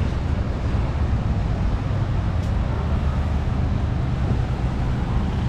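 Steady low engine rumble, an even hum that neither rises nor falls.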